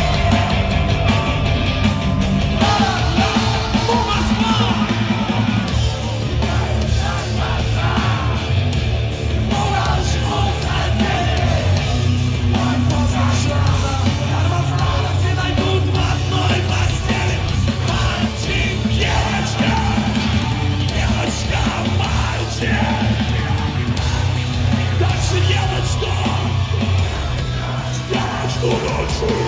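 Live heavy rock band playing, with a heavy bass and drum low end and distorted guitars, and a voice yelling or singing over it.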